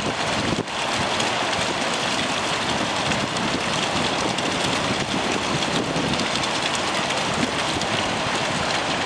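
Steady rush of a fast-flowing river tumbling over rocks, an even hiss of white water.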